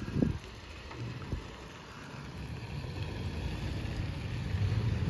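A vehicle engine running low and steady, getting louder over the last couple of seconds. A short thump with a falling pitch comes about a quarter second in, and a smaller click about a second later.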